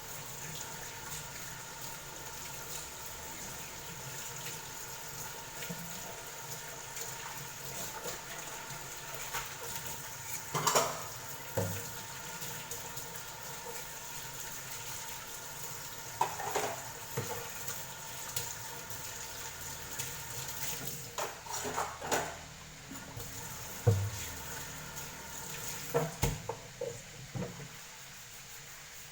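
Kitchen cooking sounds: pots, lids and utensils clink and clatter now and then over a steady background hiss.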